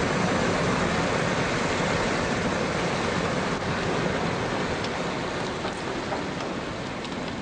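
Steady rain falling, heard from a vehicle with its engine running, with a few light drop taps in the second half. The noise eases slightly toward the end.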